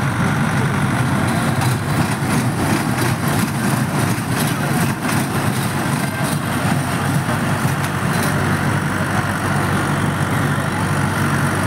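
Children's dragon-shaped fairground train ride running along its raised steel track over a steady low mechanical hum. A rattling clatter comes between about two and eight seconds in, as the cars pass close by.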